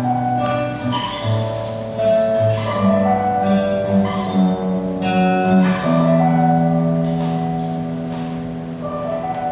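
Music with plucked-string notes over held low notes; from about six seconds in a long low note is held and the music slowly fades.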